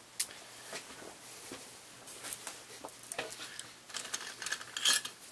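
Scattered light clicks and small knocks of hand-handled parts and tools while a rifle stock is being taken apart, the loudest little cluster near the end.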